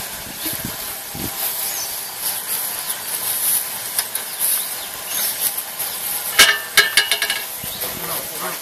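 A plastic sheet crackling and rustling as it is folded and wrapped around a gasifier's blower fitting, loudest in a flurry of crinkles about six and a half seconds in, over a steady high hiss.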